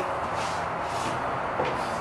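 Steady background hum with an airy hiss, with no distinct event.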